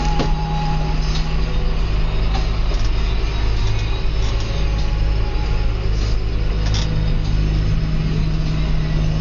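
John Deere 6820 tractor's six-cylinder diesel engine running steadily under plough load, heard from inside the cab. A few light rattling clicks come through over the engine.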